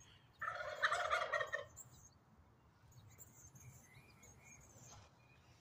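Wild turkey tom gobbling once, a rapid rattling call about half a second in that lasts just over a second.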